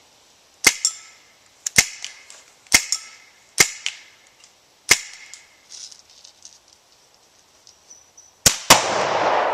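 Five airgun shots about a second apart. Near the end, one more shot is followed at once by the heavy boom of a Firebird exploding target going off, its noise rolling on and dying away slowly.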